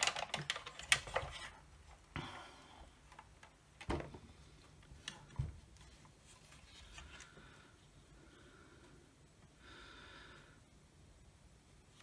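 Plastic clicks and knocks from the red plastic housing of a Milwaukee M18 six-bay battery charger as it is handled and pulled open into two halves. A quick run of clicks in the first second and a half, then a few single knocks, with faint rustling between.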